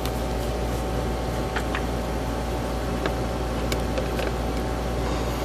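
Steady background hum and hiss, with a few faint light clicks and taps as a power bank and plug-in USB power meter are handled and set down on a wooden bench.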